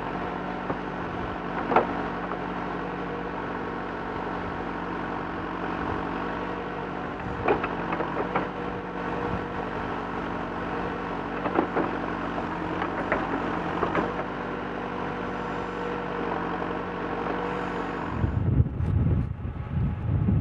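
JCB 3CX backhoe's four-cylinder diesel engine running steadily under digging load while the rear bucket works in stony ground, with several sharp knocks as the bucket strikes stones. Near the end the engine sound gives way to gusty wind on the microphone.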